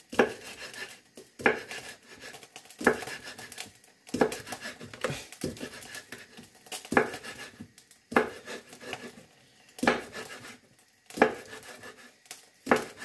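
Kitchen knife chopping garlic cloves on a wooden cutting board: a sharp knock about every second and a half, about ten in all, with fainter scraping between.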